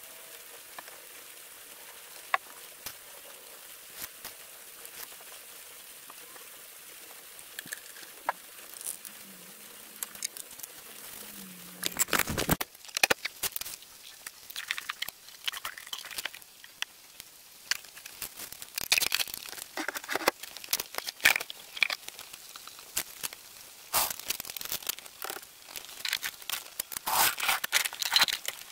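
Motor oil pouring from a plastic jug through a funnel into the engine's filler neck, a faint steady trickle with a few light clicks. About twelve seconds in it gives way to loud, irregular clicking, crinkling and scraping as a plastic oil drain container is handled on cardboard.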